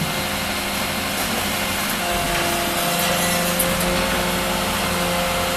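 A small motor running steadily, a buzzing hiss with a few steady droning tones that shift slightly about two seconds in.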